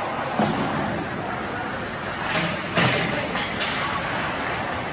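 Rink sounds at an ice hockey game: voices chattering in an echoing arena, with a few sharp knocks of stick and puck against the boards, the loudest about three seconds in.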